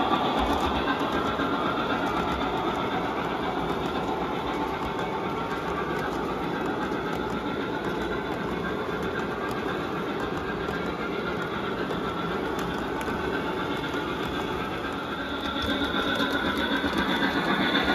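O-scale model train cars, a string of loaded coal hoppers, rolling over three-rail track with a steady rumble and clatter. It grows louder near the end as the steam locomotives come past.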